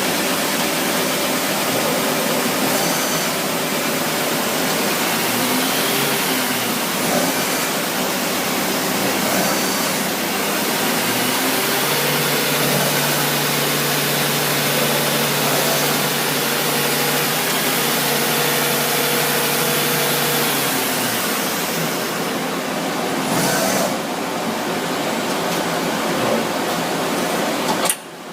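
Okuma Genos L300-M CNC turning center running a program cycle: a steady machine hum and hiss with several held tones that step and shift as the program moves on. A lower hum sets in about twelve seconds in and stops about nine seconds later. The level drops sharply for a moment just before the end.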